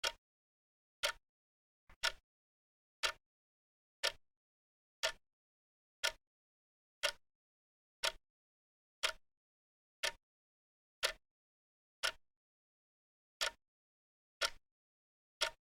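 Wrist watch ticking, sharp single ticks about once a second with silence between.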